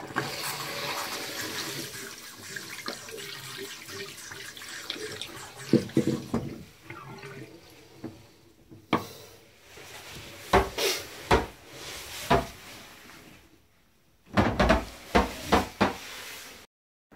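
Water running from a handheld pull-out spray head into a washbasin as a steady hiss, stopping after about eight seconds. Then comes handling: scattered knocks, with a loud run of knocks and clatters near the end.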